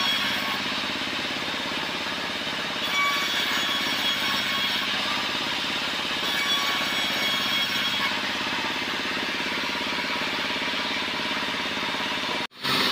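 Sawmill band saw running and cutting through a wooden slab: a steady mechanical drone with a thin whine that comes and goes. The sound cuts out for a moment near the end.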